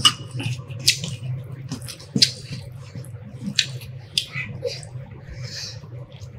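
Close-up mukbang eating sounds: wet chewing, lip smacks and the squish of rice and curry being mixed and eaten by hand, as scattered short clicks over a steady low hum.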